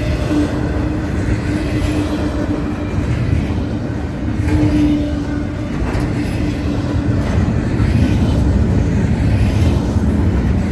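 Double-stack container well cars of an intermodal freight train rolling past: steady wheel-on-rail rolling noise with light clacking, and a low steady hum that fades in and out.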